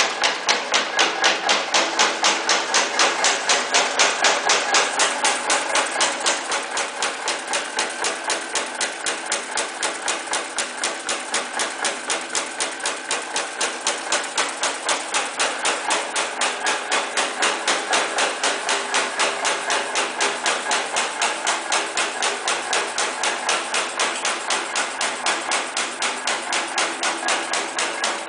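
High-speed punching press stamping teeth into a steel band saw blade strip, a rapid, perfectly even clatter of metal strikes several times a second. It runs continuously under automatic feed and is a little louder for the first six seconds or so.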